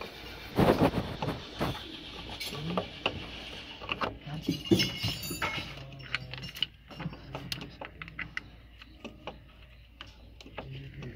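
Scattered metal clinks and knocks of parts, tools and hands as the fuel pump is worked into place on a Toyota 2KD diesel engine. They come thickest in the first half and thin out in the second.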